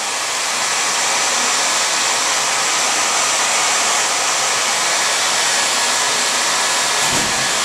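Handheld hair dryer running steadily, a constant rush of air blown at close range onto a suit jacket.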